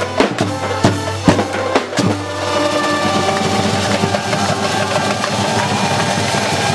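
Street brass-and-percussion band playing trumpets, saxophones and drums. Drum beats for the first two seconds, then the drumming drops away and the horns hold long notes.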